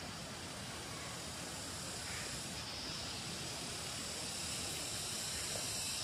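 Steady rush of flowing stream water, with a high insect drone over it that grows stronger about two and a half seconds in.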